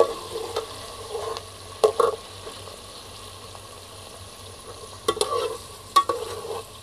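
Sliced onions sizzling in hot oil in a metal pot, stirred with a metal spoon that clinks and scrapes against the pot several times.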